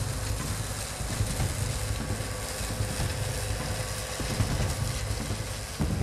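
John Deere combine harvester running steadily while harvesting soybeans: a low engine drone under the hiss and clatter of the threshing works and the chaff spreader.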